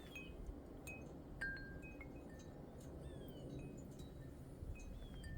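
Songbirds calling faintly: scattered short whistled notes and several quick downslurred whistles, with a few sharp chips.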